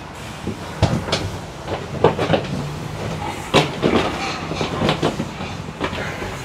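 Irregular metal knocks and clanks from a livestock truck packed with pigs, several sharp bangs a few seconds apart over a steady low hum.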